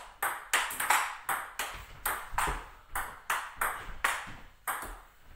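Table tennis rally: the ball clicking off the rubber paddles and bouncing on the table in quick alternation, about three to four sharp clicks a second.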